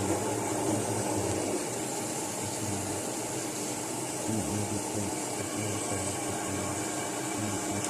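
LG inverter washing machine running, a steady hum with an even hiss over it.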